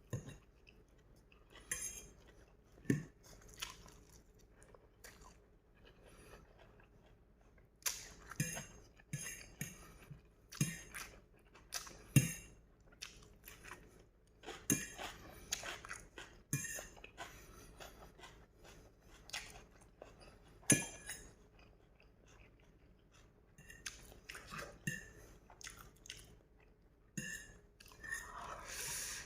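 A person chewing noodles close to the microphone, with irregular crunchy, wet mouth sounds in clusters and short pauses between bites.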